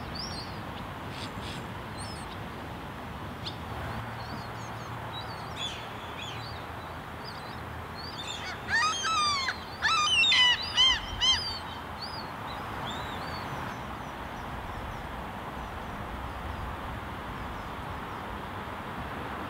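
Common gulls calling, with an adult among its juveniles. A burst of loud, repeated calls comes near the middle, with thin high calls scattered before and after over a steady background hiss.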